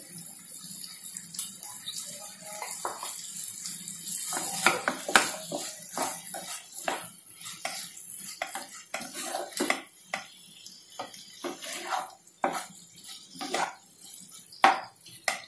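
Wooden spatula stirring and scraping a vegetable and paneer filling around a frying pan: many irregular scrapes and knocks against the pan.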